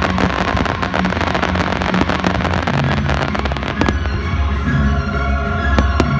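Fireworks crackling densely with sharp pops, over music with steady low bass notes. About four seconds in, the crackle thins to a few single bangs over the music.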